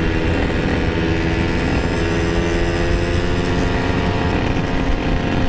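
Motorcycle engine running at a steady cruise while riding, its pitch climbing slightly a few seconds in, with wind rumble on the microphone.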